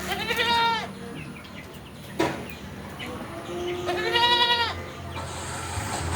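Beetal goats bleating: two calls, each under a second and about four seconds apart, with a short sharp knock between them.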